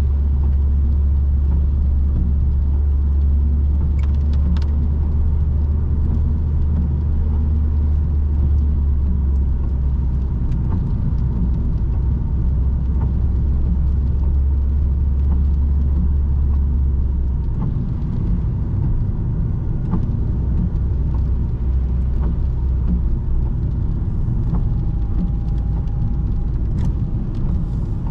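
Ford Focus 1.6 petrol four-cylinder engine and road noise while driving: a steady low drone that eases slightly about two-thirds of the way through.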